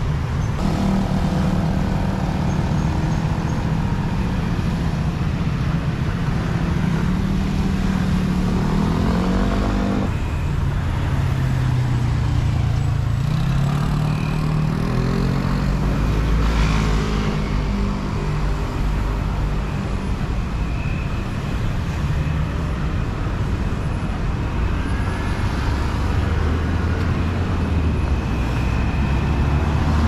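Street traffic at a busy city intersection: cars and scooters pulling away and passing, their engines rising in pitch as they accelerate. A heavier low engine rumble comes near the end as a city bus passes close by.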